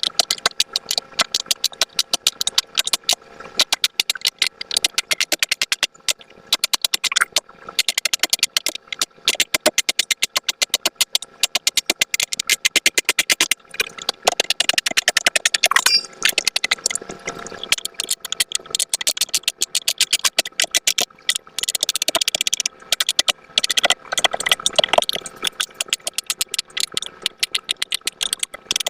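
Silicone pop-it fidget toy bubbles being pressed and popped in rapid succession: a fast, continuous stream of small clicks and pops.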